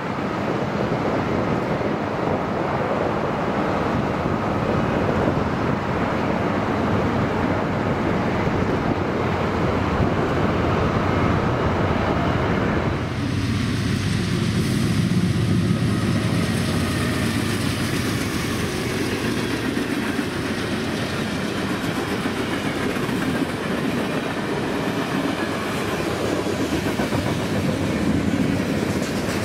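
Wind on the microphone over a train running on the far side of a river, then, from about thirteen seconds in, a CSX freight train with tank cars rolling past close by, its wheels clattering steadily over the rails.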